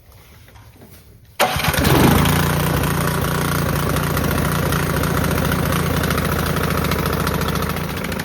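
Toro Power Clear gas snowblower engine starting on its plug-in electric starter: after about a second and a half it catches suddenly, surges briefly, then settles into a steady run.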